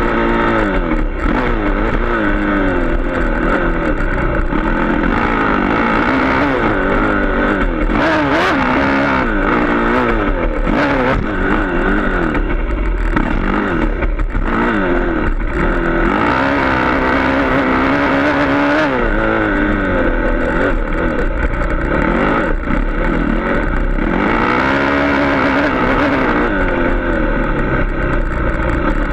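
Dirt bike engine revving up and dropping back over and over as the rider accelerates, shifts and slows around a motocross track, heard close up from on the bike.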